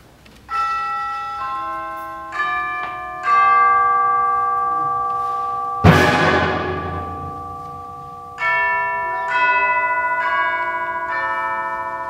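Concert band playing: sustained chords enter one after another, each slowly fading, with a loud percussion crash about six seconds in, after which new chords build again.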